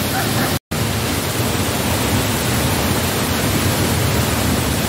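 Tall waterfall plunging into its rock pool: a steady, loud rush of falling water, broken by a split-second gap less than a second in.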